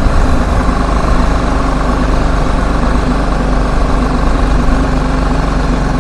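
The single-cylinder engine of a BMW G310GS motorcycle running steadily while it is ridden.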